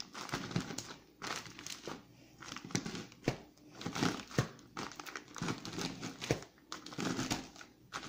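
Oreo cookies being crushed inside a plastic zip-lock bag with a wooden rolling pin: the bag crinkles and the cookies crack in irregular bursts with sharp clicks.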